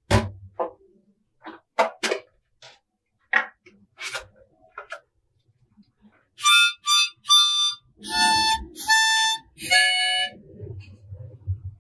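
Several sharp hand claps in the first four seconds, then five or six short, high-pitched tones rich in overtones, about six to ten seconds in, stepping lower in pitch. These are test sounds for an RGB LED controller's ambient-sound music mode, which flashes the strip in time with them.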